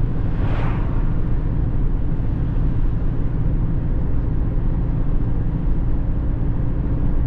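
Car driving at speed, heard from inside the cabin: a steady low drone of engine and road noise. About half a second in, an oncoming car passes with a short whoosh.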